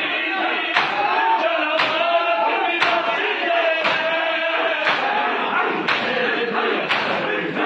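A crowd of men chanting a noha, a Shia mourning lament, while beating their bare chests in matam: a sharp, massed hand-slap about once a second, in time with the chant.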